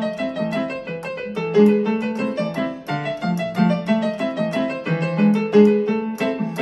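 Piano voice on a portable electronic keyboard, played with both hands: a brisk flow of right-hand notes, several a second, over repeated low chords.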